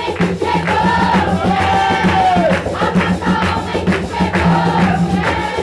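Umbanda ritual music: a group of voices singing a chant over rhythmic hand clapping and percussion, one voice holding a long note that falls away about two and a half seconds in.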